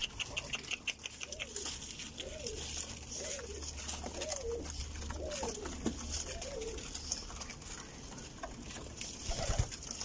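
Domestic pigeons cooing, a run of about six coos roughly a second apart through the middle, with quick light ticking of beaks pecking at the floor near the start.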